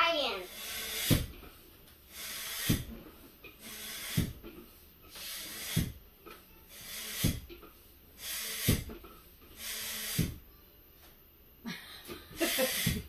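Hand balloon pump being worked in steady strokes to inflate a latex balloon. Each stroke gives a short rush of air with a soft knock, about one every second and a half.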